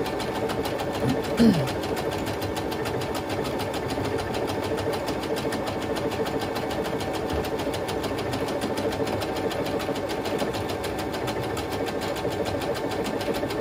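Baby Lock Lyric computerised sewing machine running by itself on its start/stop button, stitching script lettering at a fast, steady needle rhythm. A short vocal sound comes about a second and a half in.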